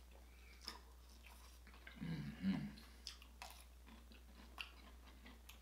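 Close-miked eating sounds: a person biting and chewing sauce-coated crab meat, with small wet smacking clicks. The loudest part comes about two seconds in.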